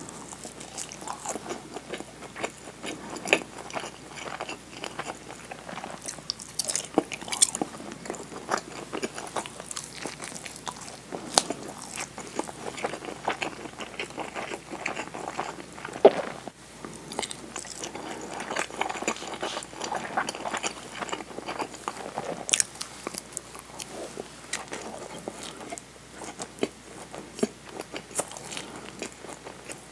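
Close-miked eating: chewing a nori-wrapped rice ball and a piece of rolled omelette. Irregular crunches, sharp clicks and wet mouth sounds throughout.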